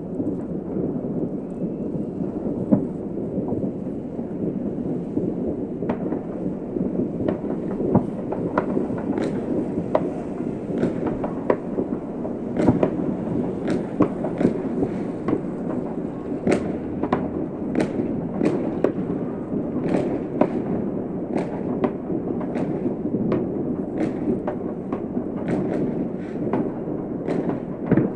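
Many fireworks going off across a city: a continuous low rumble of booms with a dense, irregular scatter of sharp cracks and pops, which grow more frequent after the first few seconds.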